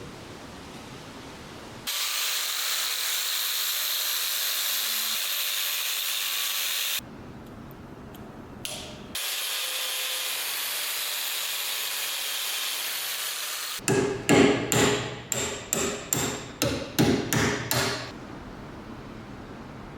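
A steady hiss of air or spray, twice for about five seconds each, then a quick run of about a dozen sharp metallic knocks, roughly three a second, from hand tools working on the metal parts of an old hand wringer.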